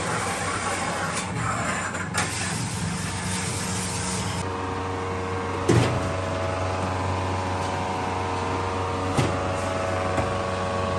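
Steady hum of food-processing machinery running, with a hiss that drops away about four seconds in and a few sharp knocks.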